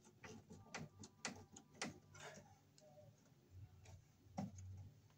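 Faint, irregular clicks and ticks of hands and a square-drive screwdriver working a wire into a circuit breaker's screw terminal in an electrical panel, most of them in the first two seconds and a couple more near the end.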